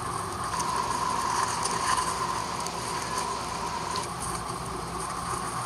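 Steady jet airliner cabin noise, engine drone and rushing air, as the plane rolls along the runway, heard played back through a screen's small speaker.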